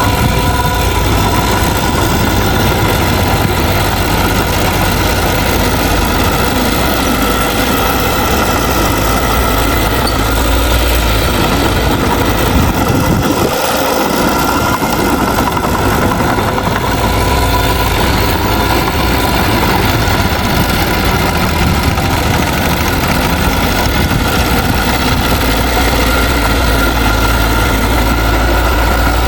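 Heavy diesel engine of a bulldozer running steadily under work, with a steady whine above the engine note; the deep engine sound dips briefly about halfway through.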